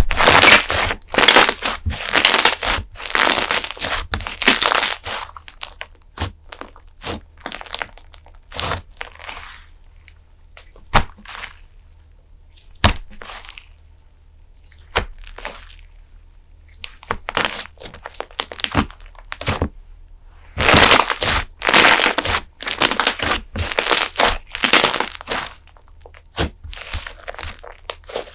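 Fluffy slime being squeezed and played with by hand, giving dense runs of crackling pops: one spell in the first five seconds, another about two-thirds of the way through, and scattered single clicks between them.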